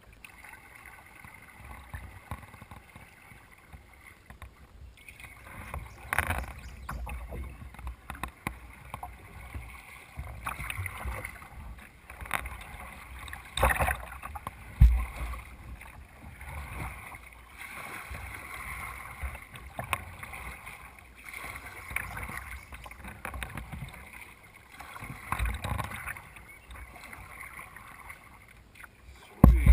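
Kayak paddling heard from a camera on the bow: paddle strokes splashing and water washing against the hull in an uneven rhythm, with scattered knocks and a few louder low thumps, the loudest about halfway through. The first few seconds are quieter.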